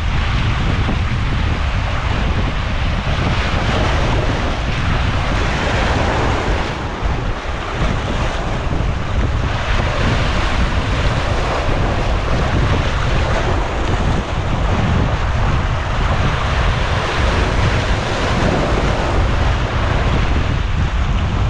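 Strong wind buffeting the microphone in a continuous low rumble, over the steady wash of sea waves against shore rocks.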